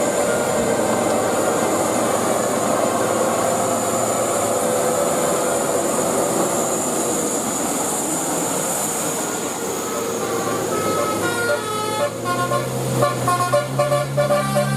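Vehicle and road noise, then from about ten seconds in a telolet basuri musical air horn plays a tune of short, quick notes that step up and down in pitch.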